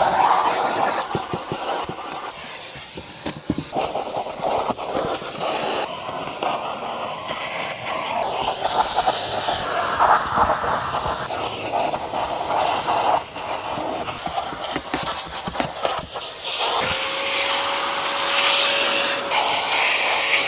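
Steam cleaner hissing as it jets steam, in uneven spurts that change abruptly several times. A steady single tone joins the hiss for the last few seconds.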